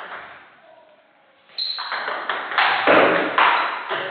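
Table tennis ball clicking sharply off a bat at the start and ringing away in a reverberant hall, then from about two seconds in a loud run of clicks and knocks with one deeper thud.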